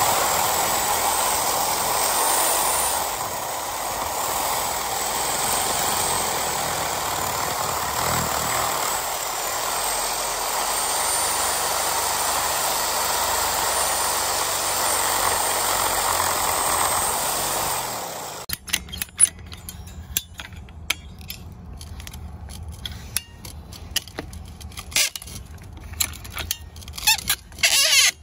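Power saw running steadily as it cuts through a water-filled PVC pipe flush at the check valve, then stopping abruptly about two-thirds of the way through. Scattered sharp clicks and knocks follow as a large wrench is handled and fitted onto the pipe fitting.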